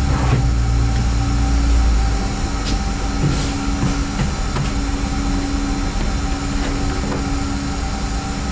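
Steady mechanical hum with a few held tones; a deeper low drone underneath drops away about two seconds in. A few light clicks and taps, like handling parts or tools, are scattered through.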